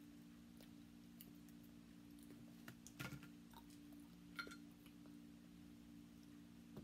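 Faint clicks and small cracks of cooked crab shell being picked apart by hand, a few sharper ones about three seconds in and near four and a half seconds, over a steady low hum.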